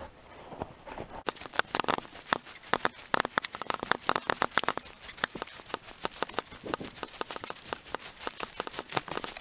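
Footsteps crunching quickly and irregularly over frost-covered ground and undergrowth as a person walks briskly, with small crackles from frozen vegetation underfoot.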